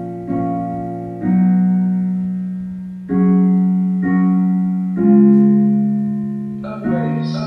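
Keyboard music with a piano-like sound, played back through a Golden Throat E550-clone amplifier board: slow chords, a new one struck every second or two, each fading out before the next.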